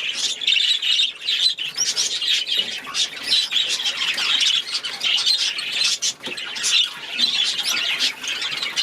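A flock of small cage birds chattering and chirping continuously, many calls overlapping with no break.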